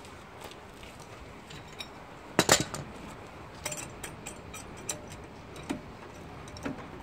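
Metal clanks and clicks from a red hydraulic trolley jack and its steel handle as the jack is set under the van and the handle is fitted. A loud clatter comes about two and a half seconds in, then a few lighter clicks.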